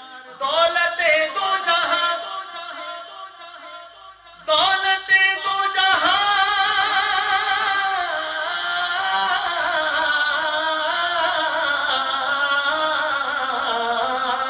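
A man singing an Urdu devotional manqabat in long, ornamented phrases. The voice fades low about two seconds in, comes back strongly at about four and a half seconds, and then holds one long wavering line.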